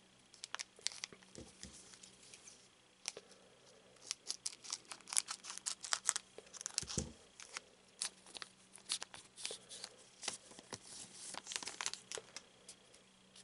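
Foil wrapper of a trading-card booster pack crinkling and tearing as it is opened, with the cards slid out of it: a long run of sharp crackles, thickest in the middle.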